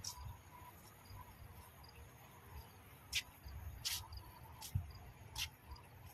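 Insects chirping in short, steady repeating notes. Four brief, sharper high-pitched chirps stand out in the second half.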